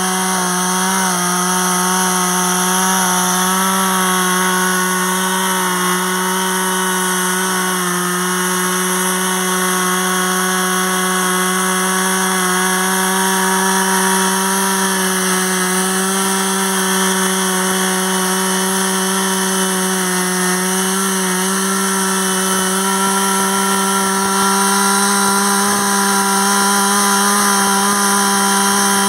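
Two-stroke petrol chainsaw running at steady high revs under load, cutting through an old tree stump low to the ground.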